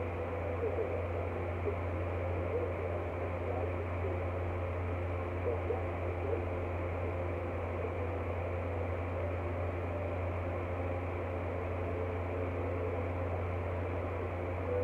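Steady low hum with an even hiss underneath, unchanging throughout, with a few faint soft sounds of eating about half a second in and again around five to six seconds in.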